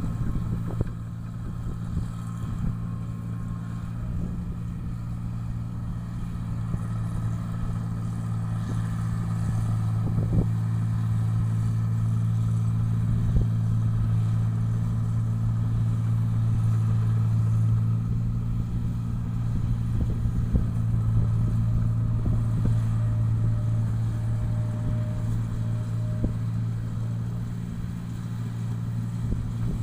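Engine-driven rice-processing machine running steadily with a low, even drone, with a few short clicks along the way.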